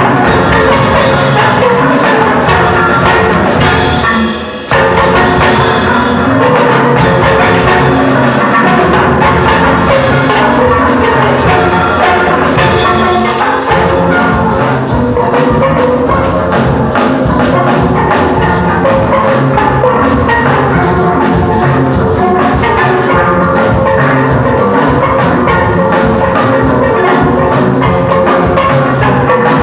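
Steel band playing a tune on steel pans, with a drum kit keeping a steady beat. The music drops out very briefly about four seconds in, then carries on.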